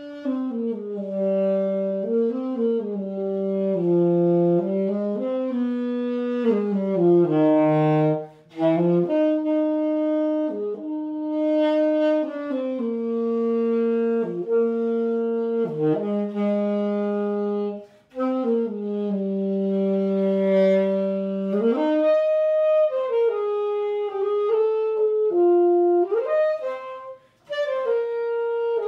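A solo wind instrument plays a melody one held note at a time, with short breaks between phrases about 8, 18 and 27 seconds in.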